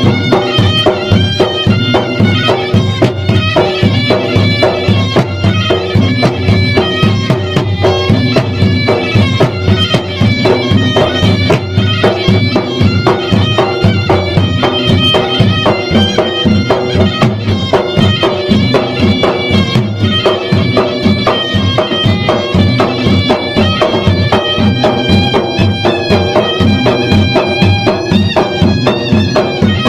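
Traditional Maros gendang ensemble playing: fast, dense, lively drumming on the gendang drums under a shrill reed wind instrument holding a droning, sustained melody.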